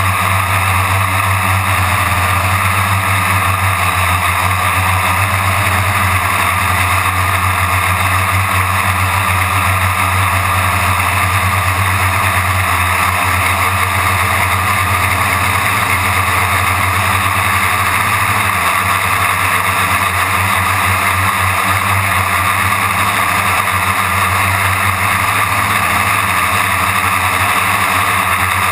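Quadcopter's electric motors and propellers buzzing steadily in flight, picked up by a camera mounted on the craft.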